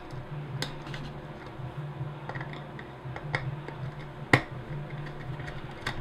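A few scattered small clicks and taps as wires and a small screwdriver work at a plastic controller's screw-terminal block, the sharpest about four seconds in, over a faint low hum.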